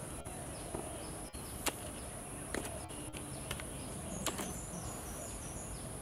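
A steady high-pitched insect drone, with many short, falling bird chirps scattered through it and a few faint clicks.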